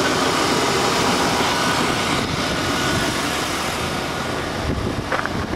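Chevy 350 V8 in a 1989 Chevy C1500 running steadily with the hood open, heard close up in the engine bay. The sound thins out near the end, with a couple of light knocks.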